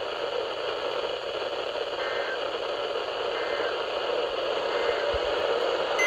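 Steady static hiss from a Midland NOAA weather radio's speaker, with no voice on the channel.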